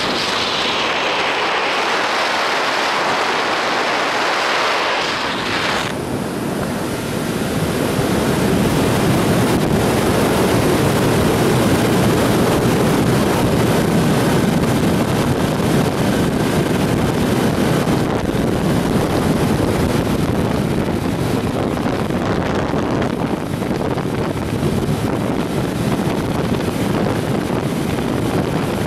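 Wind rushing over the microphone of a camera on a moving motorcycle, a steady loud rush. About six seconds in it shifts from a higher hiss to a lower, heavier rush.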